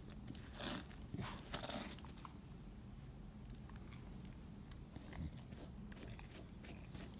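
A slicker brush and hands working through a Chow Chow's thick double coat: two scratchy brush strokes in the first two seconds, then faint rustling and a few light ticks.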